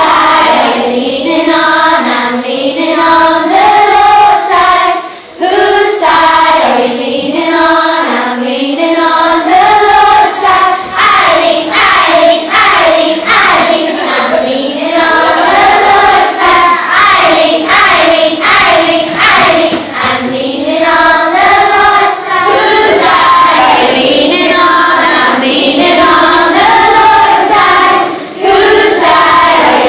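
A class of primary-school children singing a song together in unison, with short breaks for breath about five seconds in and near the end.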